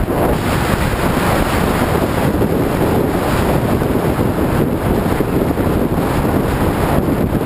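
Steady, loud wind rush buffeting the microphone of a camera on a motorcycle riding at freeway speed, with the bike's road noise mixed into it.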